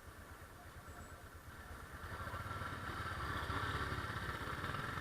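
A vehicle engine running in traffic, growing louder about two seconds in.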